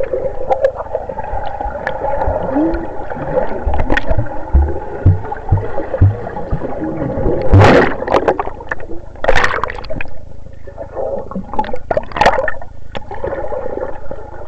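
Underwater sound from a submerged camera: muffled gurgling and bubbling over a steady hum, with several louder bubbling bursts in the second half.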